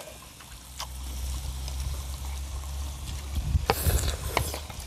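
Seafood and meat sizzling on a tabletop grill pan over a low steady rumble, with a few clicks and a louder crackling burst about three and a half seconds in as chopsticks work the food.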